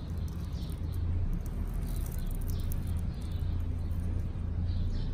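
Tortoise biting and pulling at pinto bean leaves: scattered small crisp clicks and rustles over a steady low hum, with a few faint bird chirps.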